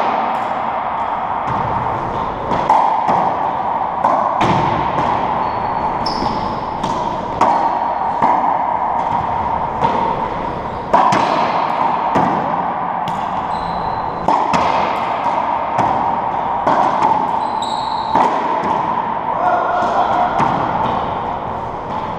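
Racquetball rally in an enclosed court: sharp cracks of the ball off racquets and walls every second or two, each ringing on in the court's echo, with a few short squeaks of shoes on the hardwood floor.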